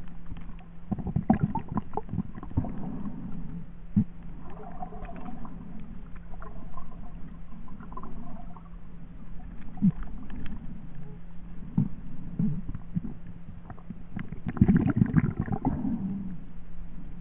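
Underwater sound picked up by a submerged camera: a steady low hum with scattered clicks and knocks, and bursts of rumbling, gurgling water noise about a second in and again near the end.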